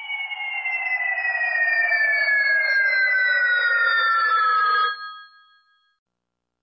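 A siren-like tone with several overtones, over a rushing hiss, gliding slowly and steadily down in pitch. It cuts off about five seconds in, with a faint ringing tail.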